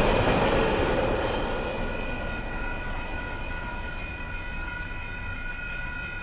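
Railroad grade-crossing electronic warning bells ringing steadily while the rumble of the departing freight train fades away over the first few seconds.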